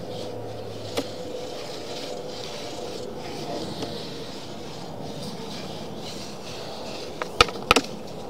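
Sewer inspection camera being pushed through a sewer pipe: the push cable rubs and scrapes steadily, with a sharp click about a second in and a quick run of sharp clicks near the end.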